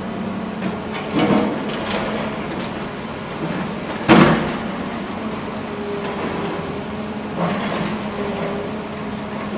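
Tracked excavator's engine running steadily, with scattered clanks and knocks of scrap metal debris and one sharp bang about four seconds in.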